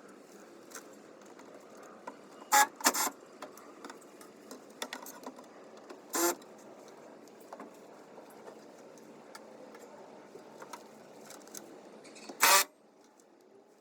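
A handful of sharp knocks and clanks, about four in all, over a steady hiss; the loudest comes near the end, and the hiss drops away right after it.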